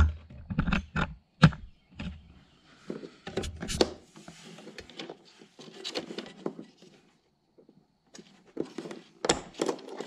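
Clicks, knocks and scraping of fingers working a plastic wiring connector loose from a riding mower's seat safety switch, pressing its locking tab. The sharpest knock comes about one and a half seconds in, and a few more clicks come near the end.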